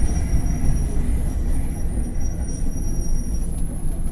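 Mercedes-Benz OF-1721 city bus running on the road, heard on board: a steady low rumble of engine and running gear, with a droning bearing. A faint high whine comes and goes near the middle.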